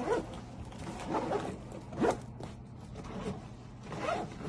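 Fabric diaper bag being handled and zipped: about five short zipper strokes and rustles, the sharpest about two seconds in.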